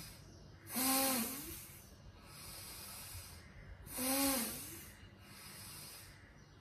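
A woman breathing in time with a fist-squeezing hand exercise. There are two forceful, partly voiced exhales, about a second in and about four seconds in, as the fists are pressed, with softer inhales between.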